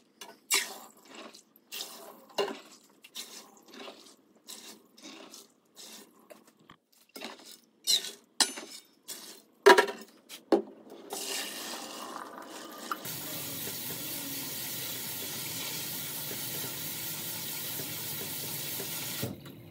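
A measuring cup clinking and scraping against a stainless steel bowl as soaked black beans are scooped into a metal strainer. About eleven seconds in, water starts running in the sink. The sink sprayer then rinses the beans in the strainer with a steady hiss that cuts off suddenly near the end.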